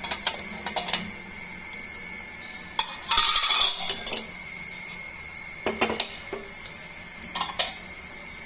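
Metal pot, lid and spoon clinking and scraping in several short bursts; the longest and loudest comes about three seconds in.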